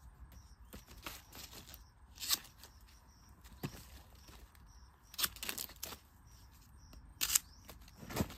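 Metal digging blade chopping and prying at bamboo shoots in leaf litter and soil: a string of separate sharp strikes and scrapes, loudest about seven seconds in. A faint, short, high chirp repeats in the background.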